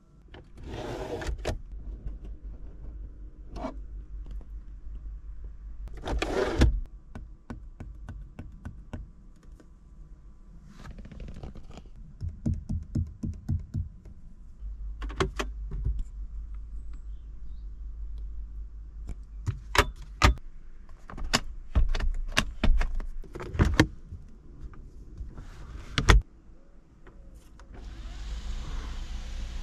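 Clicks, snaps and short sliding or rustling sounds of a Mercedes C-Class's center-console lids and storage covers being opened and shut by hand. Near the end the panoramic sunroof's electric motor starts running steadily.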